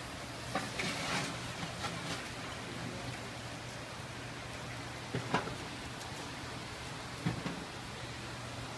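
Whole pigs roasting on turning spits over charcoal pits: a steady sizzling hiss of fat dripping onto the embers, with a few sharp pops and crackles, over a low steady hum.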